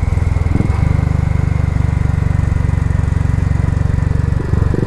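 Royal Enfield Classic 500's single-cylinder engine running steadily with an even, pulsing exhaust beat. Its note shifts briefly about half a second in and again near the end.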